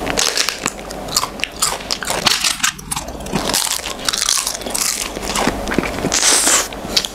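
Close-miked eating of a chocolate ice-cream crepe: repeated irregular bites and crunches with chewing and wet mouth sounds.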